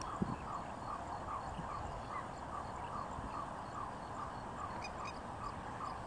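A wetland animal repeats a short call steadily, about three times a second, over a low background rumble, with a single low thump just after the start.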